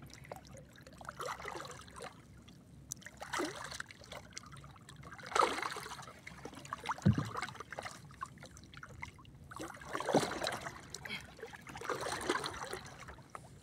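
Sea water lapping and sloshing against the hull of a small boat, in irregular splashes every second or few.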